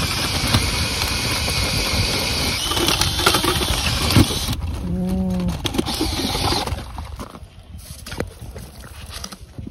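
Cordless drill driving an ice auger, boring a hole through lake ice: a steady grinding run that stops about seven seconds in, followed by a few light clicks and knocks.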